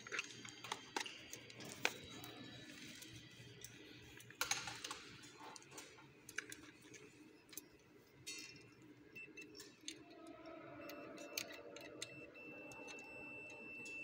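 Scattered small clicks and taps as the fire-sprinkler valve tamper switch and its metal bracket are handled. Near the end a steady high beep starts: a multimeter's continuity test sounding across the tamper switch's contacts, showing they are closed.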